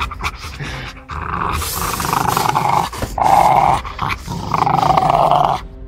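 A dog growling in three long, harsh stretches, beginning about a second in.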